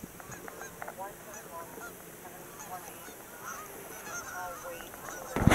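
A flock of geese flying over, honking repeatedly in many short, overlapping calls. A loud thump comes near the end.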